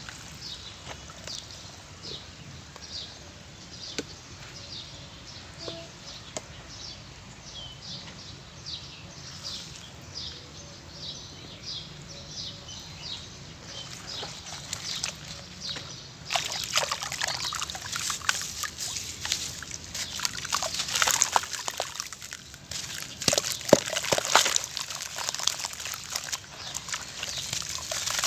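Hands swishing water in a plastic basin around a soaking, gritty block, with a steady rhythm of soft swishes. About sixteen seconds in it turns louder and crackly, with splashing and gritty crunching as the softened block is broken up and squeezed into wet crumbles in the water.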